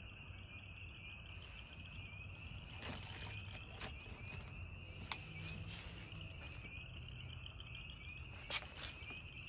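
Night insects chirping in a steady, fast pulsing trill, with several sharp clicks scattered through, the loudest two close together near the end.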